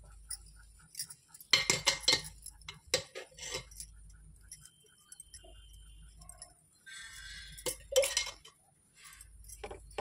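Clinks and knocks of kitchen utensils against a tawa as oil is drizzled over a pesarattu cooking on it, in several short clusters. A faint ticking runs about three times a second underneath.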